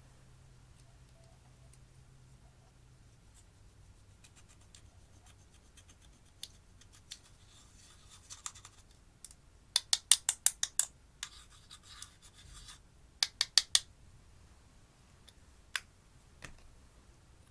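Scratching and bursts of rapid sharp clicks from slime and eyeshadow being worked by hand, loudest in two quick runs of clicks past the middle.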